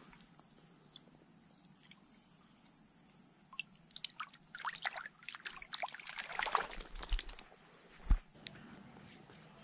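Shallow stream water splashing and trickling around the hands as a brown trout is released, a busy patch of splashes from about three and a half to seven and a half seconds in. A single sharp thump follows near the end.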